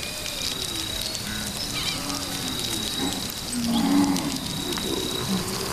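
Pasture ambience: cattle lowing in short, low calls, the loudest about four seconds in, over a steady high-pitched insect drone.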